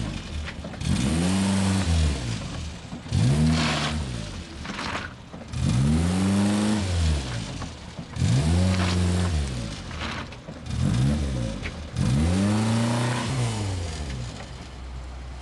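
Small car's engine revved up and down again and again as it drives around, about seven surges in a row, each climbing and falling away over a second or two.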